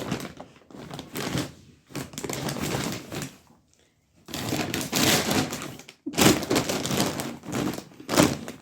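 Irregular rustling and crinkling in bursts, with a few knocks; a sharp one comes near the end.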